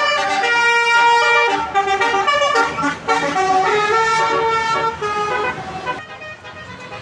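Indonesian 'telolet' bus horn, a multi-tone musical air horn, playing a quick melody of changing notes that stops about six seconds in.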